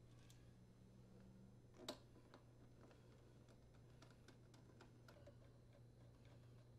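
Faint ticks and clicks of a hand screwdriver and screws being worked into a dryer door's latch plate, with one sharper click about two seconds in, over a low steady hum; otherwise near silence.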